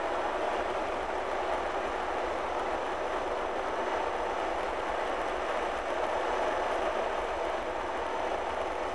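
Steady engine and tyre noise heard from inside the cab of a vehicle driving along a paved road.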